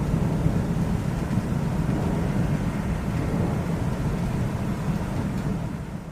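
Thunder rumbling low and steady, fading away near the end.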